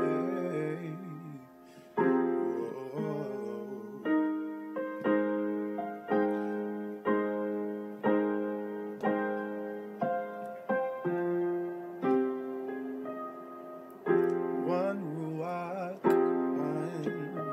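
Background music played on a keyboard: slow chords struck about once a second, each ringing and fading.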